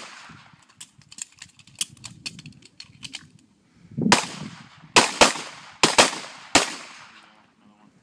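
Pistol gunfire from a line of shooters. Fainter sharp cracks and clicks come in the first few seconds, then about six loud shots follow from about four seconds in, some in quick pairs.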